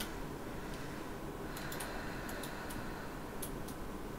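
Small, light, irregular clicks and taps from handling a punch needle and its thin threading tool while pushing the tool through the needle, mostly from about a second and a half in, over a steady low hum.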